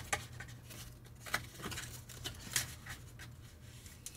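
Cardboard vacuum-tube box being handled: its flap opened and the glass tube slid out, a scatter of light rustles and small clicks over a faint steady low hum.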